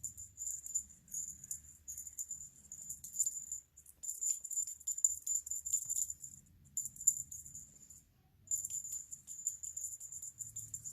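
Small jingle bell on a cat toy jingling in quick, irregular shakes and rattles, stopping briefly about four seconds in and again about eight seconds in.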